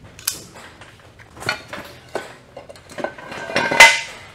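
Irregular metallic clicks and clinks as a ratchet strap is worked around the gear cluster of a ZF S5-42 manual transmission. The loudest clink, with a short ring, comes a little before the end.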